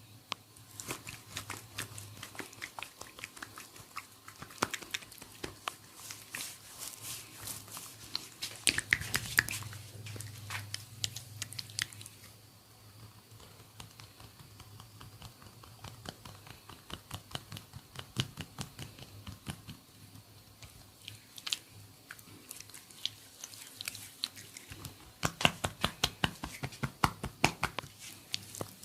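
Head massage with mustard oil: hands working oily hair and scalp, making rapid wet clicks in dense bursts.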